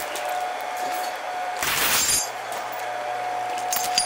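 Steel chain links clinking and rattling as a length of chain is handled, with a half-second rush of noise about one and a half seconds in and sharp clinks near the end. A steady high-pitched hum runs underneath.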